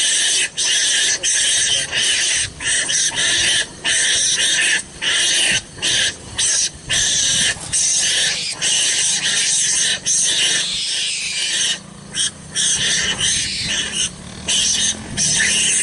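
An animal's harsh, high-pitched calling that goes on throughout, broken by many short, irregular pauses.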